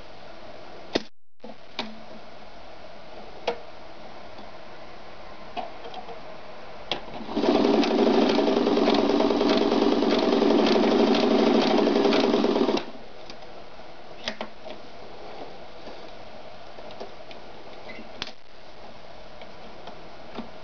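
Ideal 730 sewing machine running at a steady speed for about five seconds in the middle, stitching denim, with scattered single clicks and knocks before and after it.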